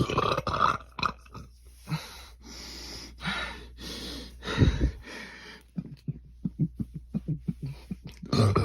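A person burping, with deep burps near the start and about halfway through, noisy breathing in between, and another burp beginning near the end.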